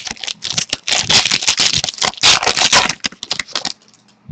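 Trading cards handled close to the microphone: rapid scraping and rustling of card stock sliding against card stock, which stops abruptly about three-quarters of the way through.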